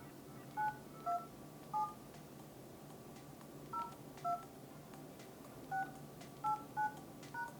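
Nokia 210 keypad sounding a short two-tone dialling beep at each key press, about nine presses at an uneven pace, as a code is keyed in on the phone.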